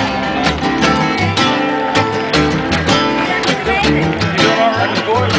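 Two acoustic guitars and an upright bass playing together, the guitars strummed in a steady rhythm over a walking low bass line.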